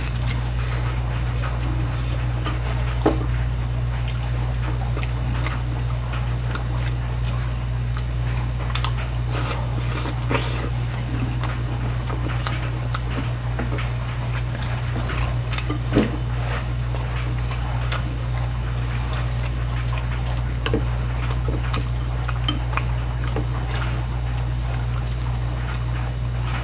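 Scattered light clinks and taps of dishes and cutlery, with a couple of louder knocks, over a steady low hum.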